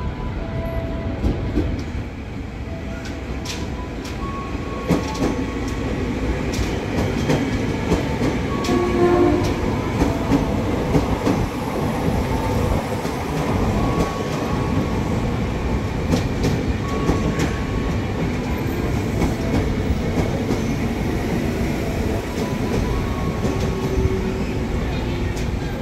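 Commuter electric multiple-unit train pulling in and slowing along the platform: a steady rumble of running gear, wheels clicking over rail joints, and short squealing tones coming and going.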